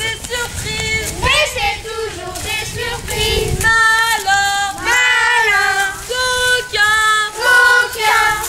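Children singing a song together, with a woman's voice singing along. A low rumble lies under the singing for the first few seconds and stops about three and a half seconds in.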